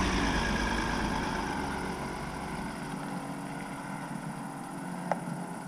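Vehicle driving, its engine and road noise fading steadily over the first three seconds to a faint hum, with a single small click about five seconds in.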